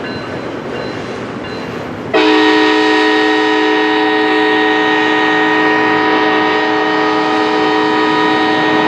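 Union Pacific SD70ACe-T4 diesel locomotive's air horn sounding one long steady blast, about seven seconds, that starts abruptly about two seconds in over the rumble of the train.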